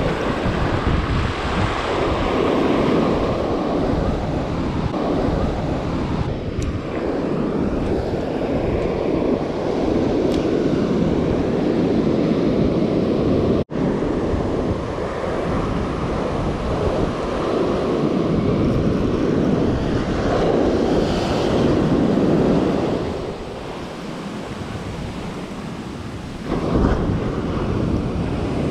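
Wind buffeting the microphone over waves washing and lapping, a loud, steady rumbling hiss. It cuts out for an instant about halfway through and eases off for a few seconds near the end.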